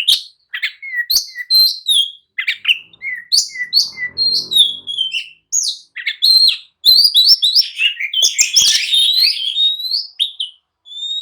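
Oriental magpie-robin (kacer) singing an agitated, fast song of varied whistles, slurred notes and chatter, the excited song kept birds give when roused to answer or challenge a rival.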